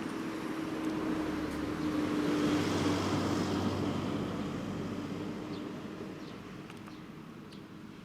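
A motor vehicle passing by: its noise swells to a peak about three seconds in, then slowly fades away.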